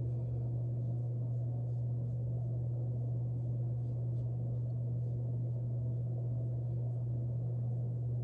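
A steady low hum runs under a faint noisy haze. A few faint, light scrapes come from a small face razor drawn across the skin of the cheek.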